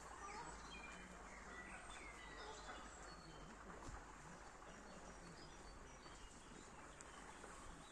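Faint songbird chirps and short gliding calls, most of them in the first few seconds, over a steady low background rumble.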